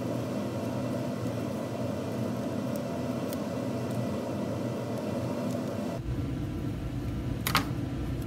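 Scissors cutting paper, a few faint snips about three seconds in, over a steady low rumble; a sharper click near the end.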